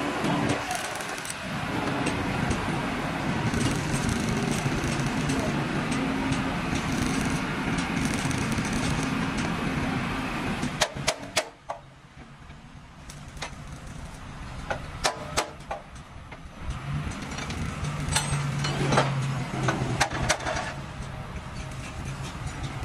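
A truck-mounted crane's diesel engine runs steadily while the hydraulic boom holds and moves a hanging truck engine. About halfway through the engine stops, and a series of sharp metal clanks follows as the chained engine is shifted over the chassis. The crane engine starts running again near the end.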